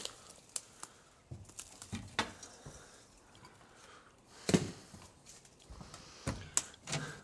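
Scattered knocks, clatters and rustling of junk being picked up and moved about, with the loudest knock about halfway through.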